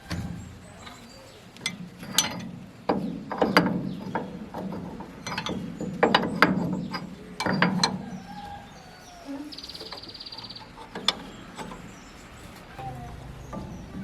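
Metal tools working on tractor parts: irregular clanks and clicks in bursts, with a short run of fast, even ratchet-like ticking a little past the middle.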